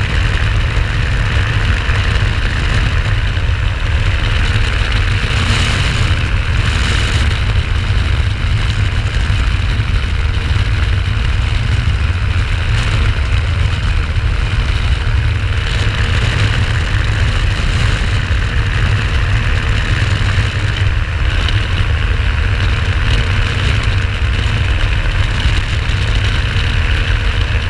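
Microlight aircraft's engine and propeller running steadily: a loud, even drone with a heavy low rumble and a steady hiss over it.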